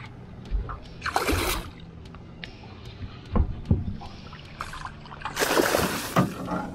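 A hooked barramundi thrashing at the surface beside the boat as it is brought to the net. There are two loud splashes about four seconds apart, with dull knocks between them.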